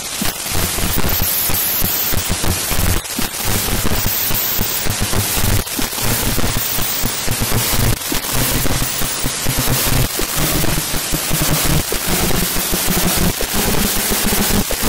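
Harsh, heavily distorted electronic noise: dense crackling static over a low droning hum, loud and unbroken.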